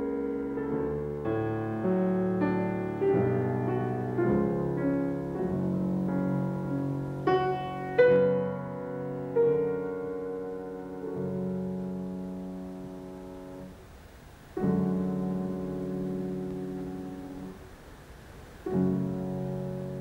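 Grand piano played solo in a classical piece: struck chords and notes, the loudest attack about eight seconds in. The playing then slows into long held chords, each left to ring and fade.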